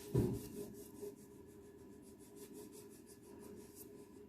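Plastic crayon rubbing on paper in quick back-and-forth strokes, filling in an even shade of colour, with one louder scuff near the start.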